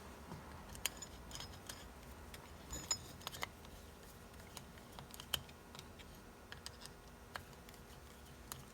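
Small metal parts being handled, giving irregular light clicks and taps over a faint low hum.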